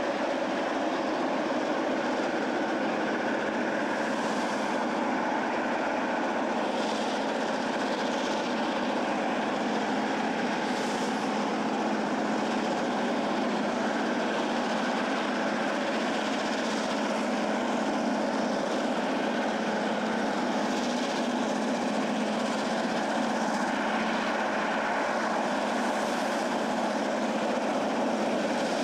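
Several Duluth, Missabe & Iron Range diesel locomotives running under power at the head of a freight train, a steady engine drone that holds even throughout.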